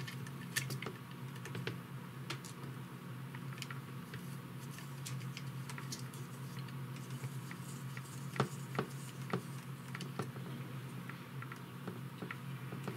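Scattered small clicks and ticks of screws, a screwdriver and carbon-fibre frame parts being handled as a drone frame is screwed closed, over a steady low hum.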